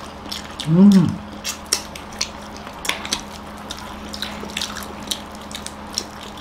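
Wet chewing and lip-smacking of people eating roasted chicken pieces with their hands, heard as a run of short clicks. About a second in comes a brief hummed voice sound that rises and falls in pitch.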